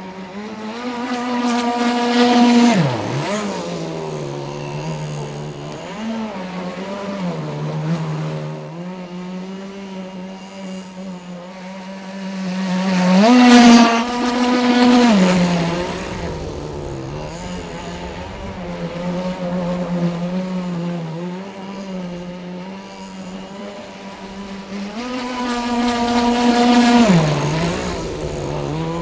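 Internal-combustion engine of a Riptide Stealth radio-controlled model speedboat running flat out as it laps, a steady high buzz. It swells loud three times as the boat passes close, each pass ending in a drop in pitch.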